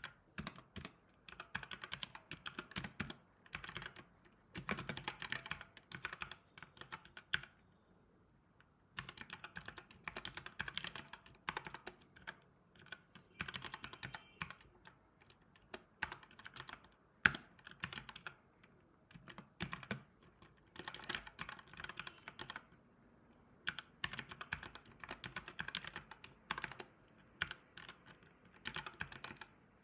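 Typing on a computer keyboard: quick runs of keystrokes broken by short pauses, with one louder key strike a little past halfway.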